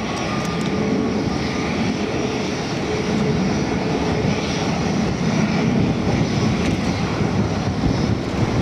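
Steady jet aircraft engine noise at an airport: a broad rumble with a faint steady whine over it.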